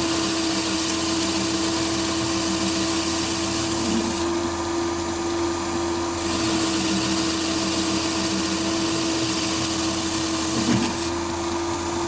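Metal lathe running steadily, with a constant hum and a high whine, as the tool takes a turning cut along the register diameter of a backplate blank.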